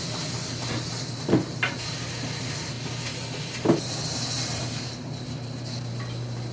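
A steady low machine hum with a hiss over it, broken by three sharp knocks: two close together about a second in and one more a couple of seconds later.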